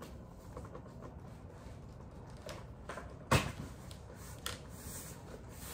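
Packaging being handled and pried at while being opened: a few scattered clicks and knocks, the loudest a little over three seconds in.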